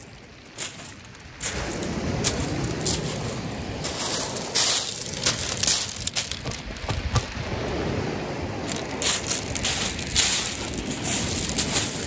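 Crackling handling noise on a phone microphone and crunching beach shingle underfoot, with a low wind rumble that sets in about a second and a half in.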